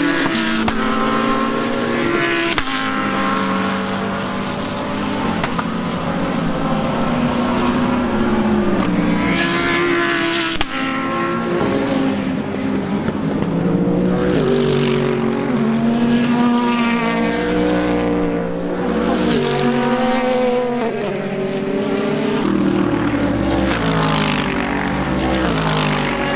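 Several sports-prototype and GT3 race cars passing at speed, their engine notes overlapping and rising and falling in pitch, with quick steps in pitch as they change gear.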